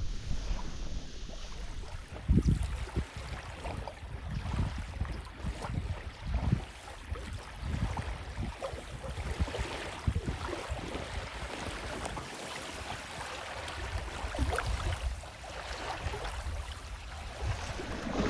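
Footsteps while walking along a riverbank: irregular thumps about once a second, with rustling over a steady rushing background of wind and water.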